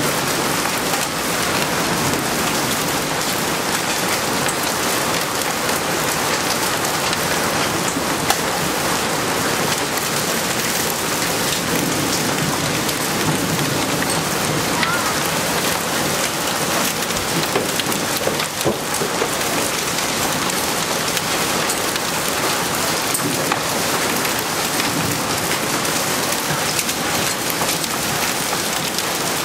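Heavy rain mixed with hail falling on pavement and gravel during a thunderstorm: a steady, dense hiss dotted with many small ticks of stones striking the ground.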